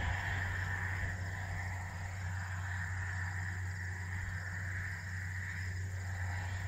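Steady machine hum: a low drone with a higher whine over it that swells and fades slowly.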